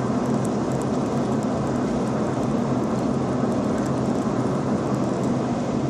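Steady road and engine noise inside a moving car's cabin, with a low even hum.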